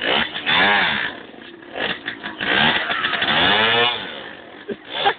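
Two-stroke engine of a 1964 Zündapp EFS 220m moped being revved in blips, its pitch rising and falling back each time: a short blip near the start and a longer, higher one in the middle, running lower between them.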